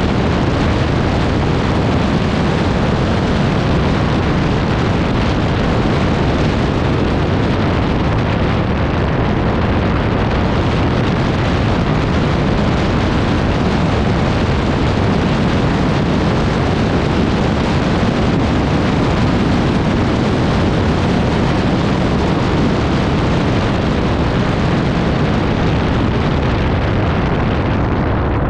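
ATV under way: its engine running steadily, mixed into a loud, continuous rushing noise.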